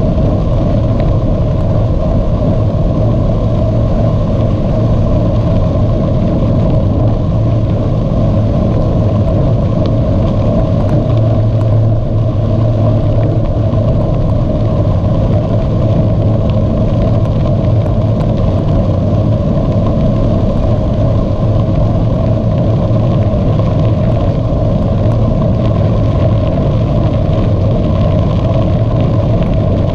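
Steady rumble of wind and tyre noise on the microphone of a camera carried on a moving bicycle.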